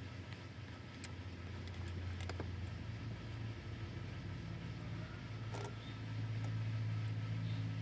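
A car engine idling with a steady low hum, which gets louder and slightly higher about six seconds in, with a few faint clicks over it.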